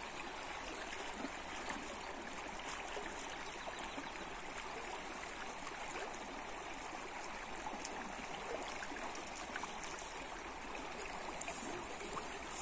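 Steady rushing of a fast, shallow river current running over a riffle.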